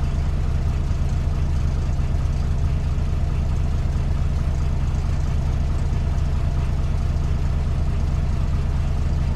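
Diesel truck engine idling, a steady low throb heard from inside the cab.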